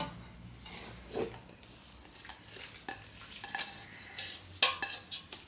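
A stainless steel pot and a glass baking dish being handled: soft knocks and scrapes, then one sharp ringing clink near the end as the pot is tipped over the dish to turn out the raw meatloaf mixture.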